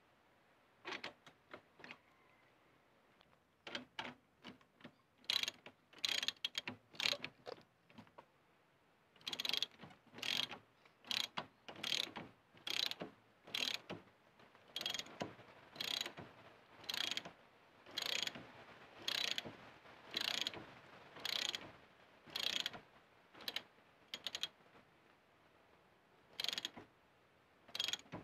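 Socket ratchet wrench clicking in short bursts, about one a second with a couple of brief pauses, as it is worked back and forth to tighten the rear wheel hub nut on a drum-brake hub.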